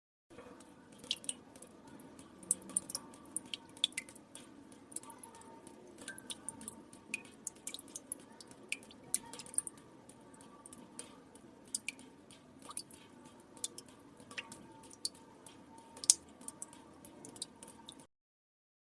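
Water drops falling into still water, irregular plinks of varying size a few times a second over a faint low hum. The sound cuts to silence for about a second near the end.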